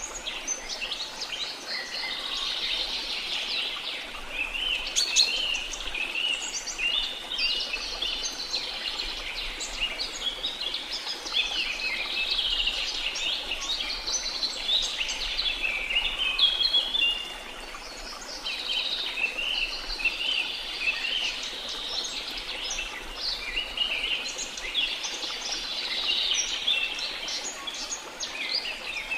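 A dense chorus of many small birds chirping and twittering over a steady wash of sea noise.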